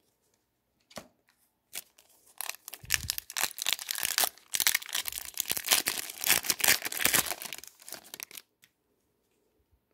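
Foil wrapper of an Upper Deck Series 2 retail hockey card pack being torn open and crinkled by hand: a dense crackle of tearing and rustling foil that begins about two seconds in, runs for about six seconds and stops abruptly near the end.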